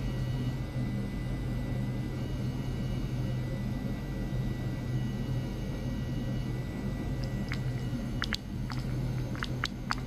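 A steady low hum, with a handful of sharp clicks or taps in the last few seconds.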